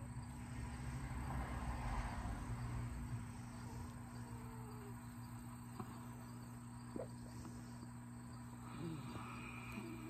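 A sleeping pet snoring softly: one long snoring breath about a second in, then quieter breathing over a faint steady hum, with two small clicks and the next breath beginning near the end.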